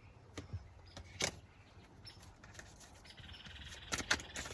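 Tarot cards being handled: scattered light clicks and taps, a brief faint rattle about three seconds in, and a quicker run of clicks near the end.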